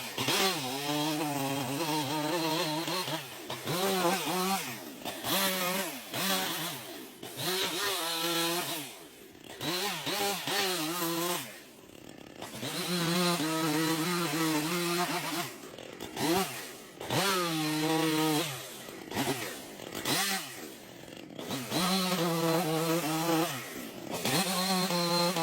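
Chainsaw running through wood, the engine pitch rising under full throttle and falling off again over and over, with a brief drop in level every few seconds between cuts.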